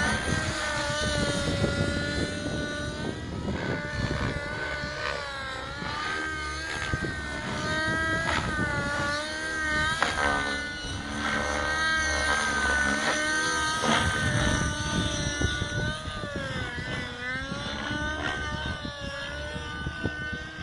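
Nitro-engined RC helicopter in flight: a high engine whine that rises and falls in pitch as it manoeuvres.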